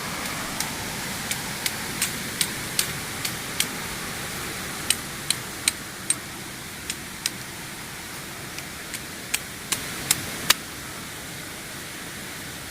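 Steady rush of a waterfall, with about twenty light, sharp, irregularly spaced clicks of chopsticks knocking against a pot.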